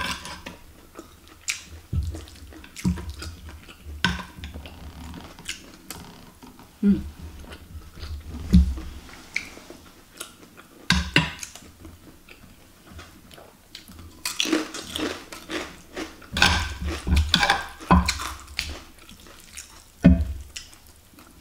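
Metal spoon clicking and scraping against a terracotta bowl of food, scattered knocks at first, then several denser bouts of scraping and stirring about two-thirds of the way through, with quiet chewing in between.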